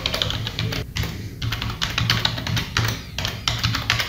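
Rapid typing on a computer keyboard, key clicks following one another quickly, with a brief pause about a second in.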